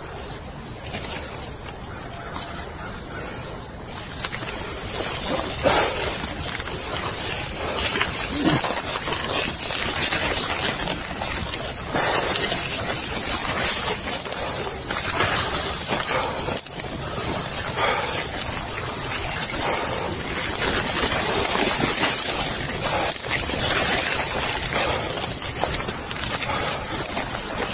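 Footsteps crunching through dry leaf litter and brush rustling against the body, at an irregular pace, over a steady high insect drone.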